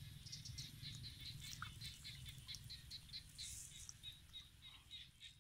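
Faint outdoor ambience of small birds chirping, many short high chirps over a low rumble, fading down toward the end.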